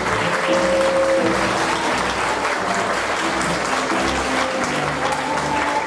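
Audience applauding steadily, with music playing underneath: held notes of a melody over the clapping.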